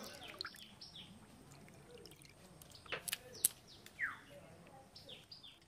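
Water sloshing in a steel bowl as hands rinse cut lote fish (Bombay duck), with two sharp clicks about three seconds in. Birds chirp throughout with short, quick falling calls.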